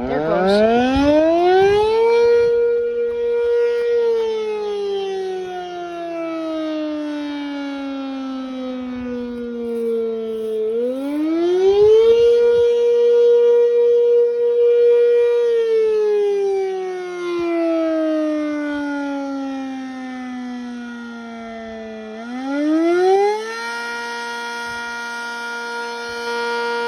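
Sentry 10V electromechanical warning siren sounding in cycles: it winds up from a low pitch, holds a steady high tone for a couple of seconds, then slowly winds down. It cuts back in and winds up again about every eleven seconds, three wind-ups in all.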